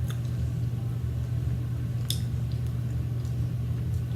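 Close-up chewing and wet mouth sounds of someone eating, with a few faint clicks, the clearest about two seconds in, over a steady low hum.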